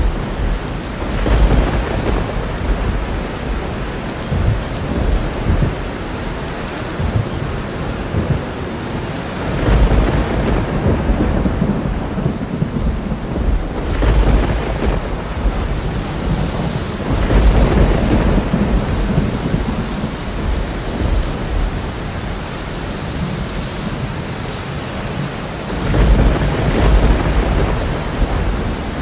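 Thunderstorm: steady heavy rain with rolling thunder that swells up deep and loud about five times.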